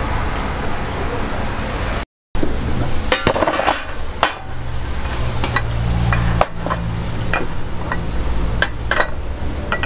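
Metal cooking tools clinking and tapping against metal egg-bread baking molds: scattered sharp clinks, a dozen or so, over a steady low background hum. The sound cuts out briefly about two seconds in.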